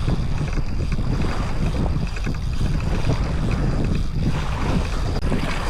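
Wind buffeting the microphone outdoors, a steady low rumble with a faint, thin high whine running through it.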